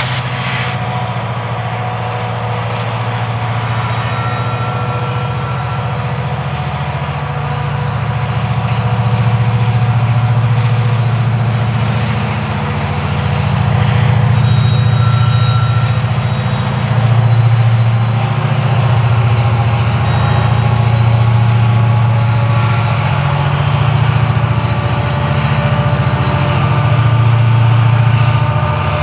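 EMD SD70ACe diesel-electric helper locomotives, 16-cylinder two-stroke diesels, working hard to get a loaded coal train moving upgrade: a loud, steady low engine drone that swells and eases slightly, with thin steady high tones riding over it.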